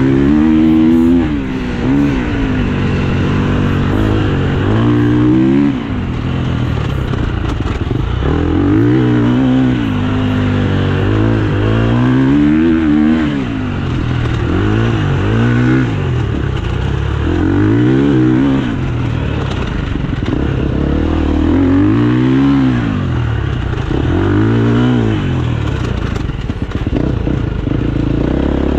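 KTM 350 EXC-F enduro motorcycle's single-cylinder four-stroke engine being ridden hard off-road, the revs climbing and dropping back over and over, about every two to three seconds.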